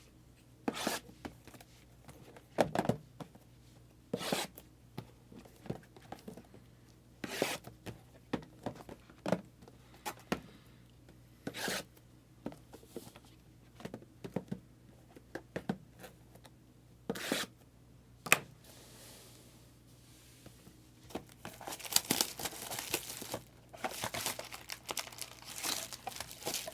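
Sports card boxes and packs being opened by hand: scattered sharp tearing and handling sounds, then from about three-quarters of the way in a dense stretch of plastic wrapper crinkling.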